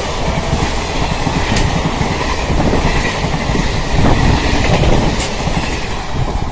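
Indian Railways passenger train's coaches running past at speed, a steady loud rush of wheels on rail with a couple of sharp clicks. The sound eases off near the end as the last coach goes by.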